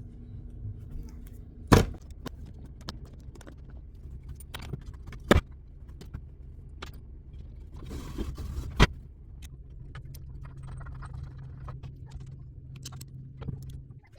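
Handling and clatter of things being moved about a room, with small clicks, a brief rustle and three sharp knocks spaced a few seconds apart, over a steady low hum that stops near the end.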